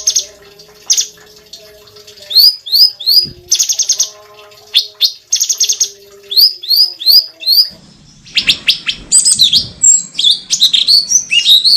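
Cucak cungkok singing: sharp rising whistled notes in quick runs of three, alternating with fast rattling trills. The last few seconds turn into a busier, more varied run of notes.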